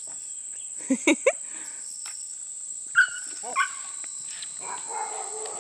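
Dog yelping in short, sharp cries: three quick ones about a second in and two more about three seconds in. These are cries of distress, as if the dog has been hurt or caught on the cable run.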